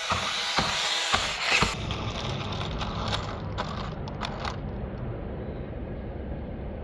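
A 1/16-scale RC GMC Hummer EV's small electric drive whirs and clicks as the truck rolls across carpet. About one and a half seconds in the sound cuts to a steady low outdoor rumble with a few faint clicks.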